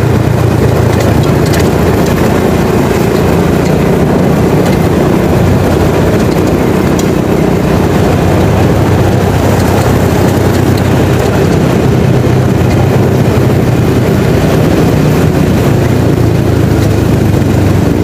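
Motorcycle engine running steadily while riding along at road speed.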